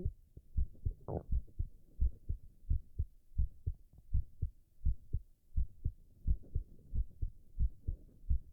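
A man's heartbeat: steady paired lub-dub thumps, a little faster than one beat a second. A short, higher sound cuts in once about a second in.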